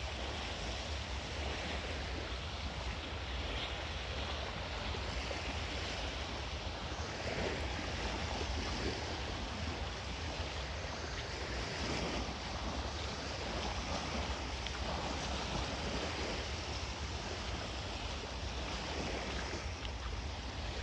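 Small waves lapping and breaking steadily on a sandy shore, with a low rumble of wind on the microphone.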